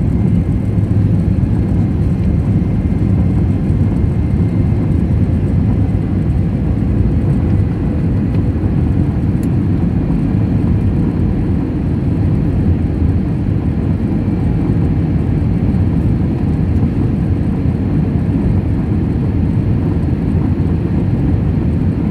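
Steady low roar inside a jet airliner's cabin in flight, from the engines and the air rushing past the fuselage, heard from a window seat over the wing.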